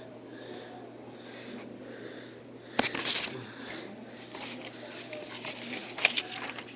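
Soft breathing close to the microphone, then about three seconds in a sharp click followed by rustling and crinkling of the cardboard box and paper inserts being handled.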